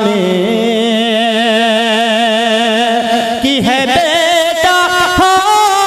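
A man singing a naat unaccompanied, holding long melismatic notes with a wide, even vibrato. A little past halfway the line breaks into quick runs, and it settles on a higher held note about three quarters in.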